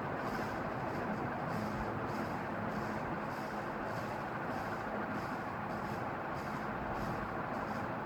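National F-EY-149-1 ceiling fan running steadily: an even rush of air with a low motor hum and a faint, regular pulsing whoosh from the turning blades.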